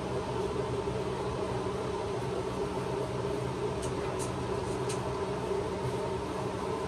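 Hanvey Bathing Beauty power bathing system running steadily: its pump hums while the nozzle sprays shampoo water onto a dog's coat. A few faint ticks come about four seconds in.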